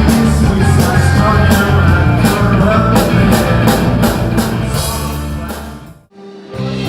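Rock music with drums, guitar and bass, fading out about five seconds in; after a brief gap, another piece of music starts near the end.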